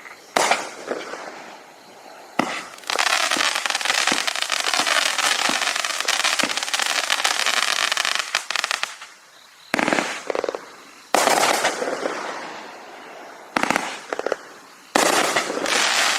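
Consumer fireworks cake, a multi-shot repeater, firing aerial shells: a series of sharp loud bursts, with a long stretch of dense crackling from about three to nine seconds in and more bursts near the end.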